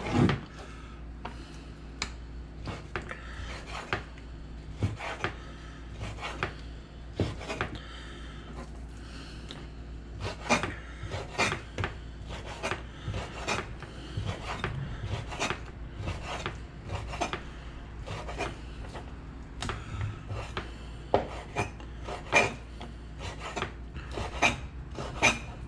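Kitchen knife cutting on a wooden cutting board: irregular taps and scrapes that come thicker in the second half, over a low steady hum.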